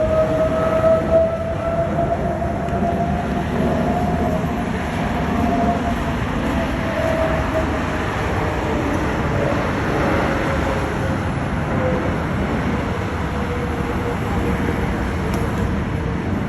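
Aircraft engine noise at an air show: a steady roar with a whine that slowly falls in pitch as the aircraft passes and moves away.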